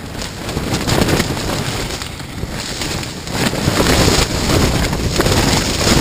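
Strong gusting wind buffeting and shaking a tent, with wind rumbling on the microphone; the gust grows louder about three seconds in.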